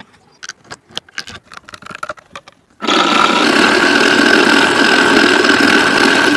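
A few light clicks and knocks of handling, then about three seconds in a small electric motor switches on and runs steadily with a high whine: the homemade mini scroll saw running.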